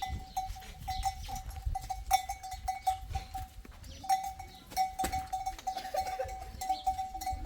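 Bell worn by livestock in a flock, ringing and clanking almost without a break as the animals move, with a brief pause about halfway through, over scattered knocks and clatter.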